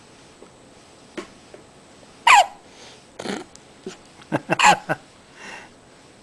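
Baby hiccupping: short, sharp hics, some with a brief squeak of voice, the loudest about two seconds in and a quick run of them around four and a half seconds in.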